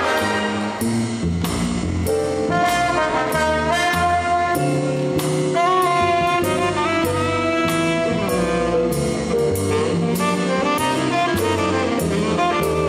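Big band playing jazz, with a saxophone leading over the horns and a steady drum-kit beat.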